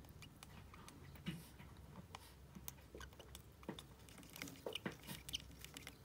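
Faint, irregular clicks and ticks of a baby lovebird's beak working at the tip of a feeding syringe as it is hand-fed.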